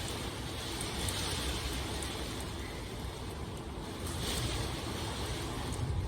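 Steady rain, an even rushing hiss that swells and eases slightly.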